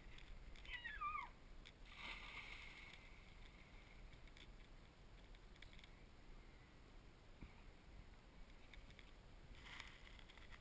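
Near silence: faint outdoor ambience, with one short wavy, falling call about a second in.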